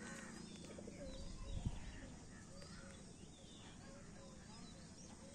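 Faint outdoor birdsong: several birds chirping, with a short low call repeating again and again. There is one soft, low thump about a second and a half in.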